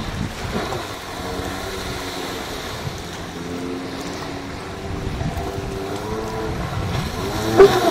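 Distant Yamaha WaveRunner 1300cc jet ski engine running out on the water, its note rising and falling as the craft turns, with wind buffeting the microphone. A short, sharp loud sound comes near the end.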